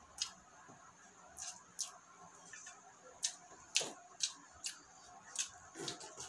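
Close-up eating sounds of a person eating chicken with his hands: irregular wet lip smacks and mouth clicks while chewing and sucking meat off a bone, about a dozen of them, the loudest near the middle.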